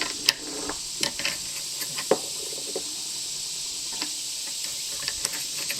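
A few light, sharp clicks and knocks over a steady high hiss.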